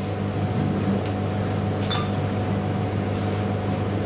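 Steady low mechanical hum with a short click about two seconds in.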